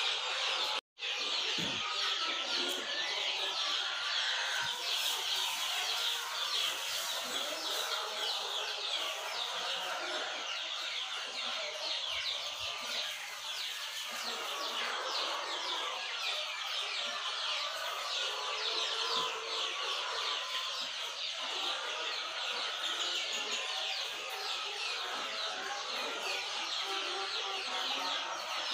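A flock of young native chickens (ayam kampung) chirping and peeping without a break, many short calls overlapping. The sound cuts out for an instant about a second in.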